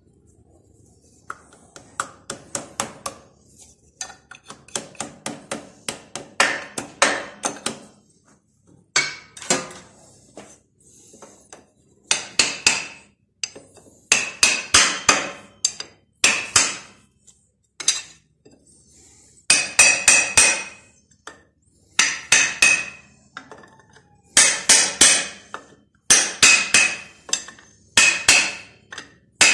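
Hammer striking a steel drift set into the gear-shift lever housing of a Yağmur 510 tiller gearbox. The blows come in quick bursts of several ringing metal-on-metal strikes with short pauses between.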